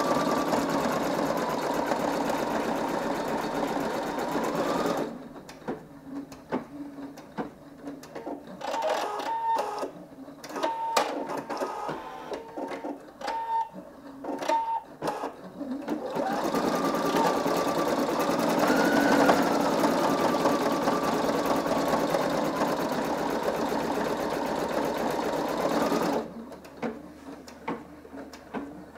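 Singer EM9305 embroidery machine stitching out a design, its needle running at speed. About five seconds in it turns to slower, broken-up clicking with short tones for about ten seconds, then runs steadily at speed again before dropping back to sporadic clicks near the end.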